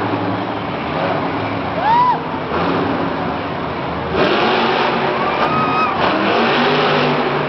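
Monster truck engine revving with a steady crowd din underneath, growing louder about four seconds in with rising and falling pitch.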